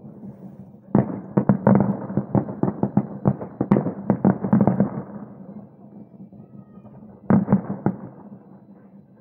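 Fireworks display going off: a rapid barrage of bangs starts about a second in and tails off after about four seconds, then a second short volley comes near the end.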